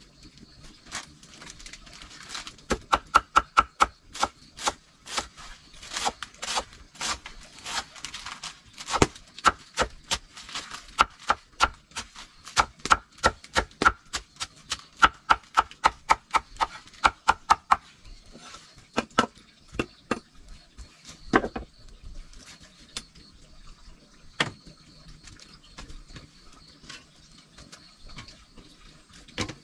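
Sharp knocks or taps, several a second in quick uneven runs, thinning out to a few single knocks after about eighteen seconds.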